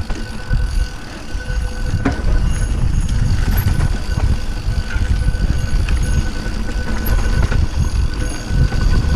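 Mountain bike riding down a dirt singletrack, heard from a camera on the bike or rider: a continuous low rumble of wind and tyres on the trail, with scattered clicks and knocks from the bike rattling over bumps, one sharper knock about two seconds in.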